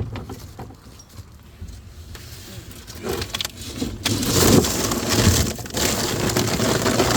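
Fish food container being handled and shaken out: scattered knocks at first, then a loud, dense rattling and rustling over roughly the last four seconds.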